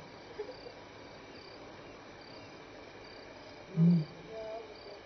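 Crickets chirping steadily, about twice a second. About four seconds in, a lion gives one loud, short, low contact call that falls slightly in pitch.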